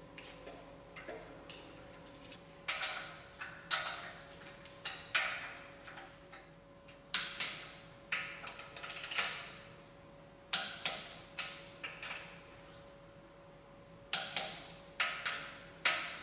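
Ratchet wrench clicking in short runs of strokes with pauses between, as bolts are run down on an engine's oil filter housing.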